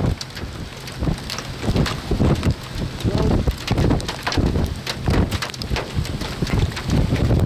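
Gusty storm wind buffeting the microphone, with many sharp ticks of rain striking close by.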